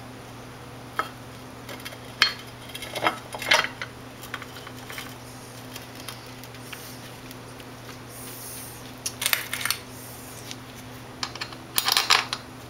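Scattered metal clinks and knocks from the cast-aluminium case of an MTD 618-04034 riding-mower transaxle as the case half is seated and handled, with a quick cluster of clinks near the end.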